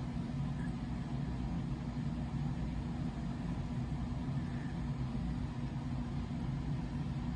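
A steady low mechanical hum with a constant pitch and no change in level.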